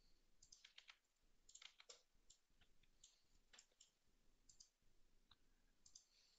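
Faint, scattered clicks of a computer mouse and keyboard in small clusters, over near silence.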